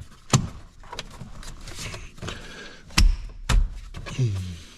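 Plastic dash trim on a Mustang being handled and pushed into place: a sharp click early, light rattling clicks, then two heavy thunks about half a second apart as the panel's clips are pressed home.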